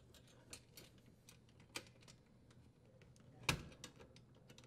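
Faint scattered clicks and taps of metal parts being handled while a metal strain relief nut is threaded onto the dishwasher's junction box bracket. About three and a half seconds in comes one sharper metal tap, as a screwdriver tip meets the nut to tighten it.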